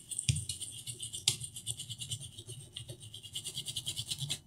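A brush scrubbing a laptop motherboard with rapid, steady back-and-forth strokes, cleaning off liquid-damage corrosion, with a couple of sharper knocks; the scrubbing stops abruptly near the end.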